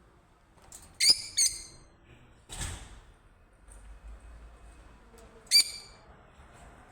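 Short, sharp bird calls: two in quick succession about a second in and a third near the end, with a brief rustling whoosh between them.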